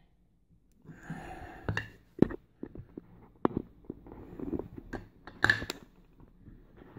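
Handling of a Chubb Biaxial euro cylinder lock and tools as it is being taken apart: a string of sharp clicks and knocks, loudest about two seconds in and again past the middle, with rustling between them.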